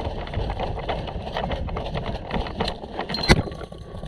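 Wind buffeting a head-mounted microphone, with irregular footsteps and gear knocks as the player moves through grass. A single sharp crack about three seconds in is a shot from the airsoft pistol.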